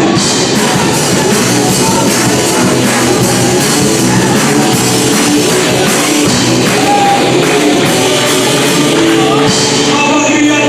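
A live worship band playing a rock-style praise song, with drum kit, tambourine and instruments under singing voices.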